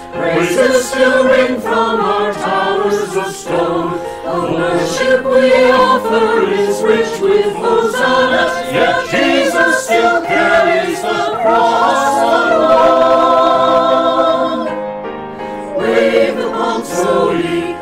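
Mixed choir of men's and women's voices singing a sacred anthem with piano accompaniment. About twelve seconds in the voices hold a long chord, which fades briefly before the singing comes back in.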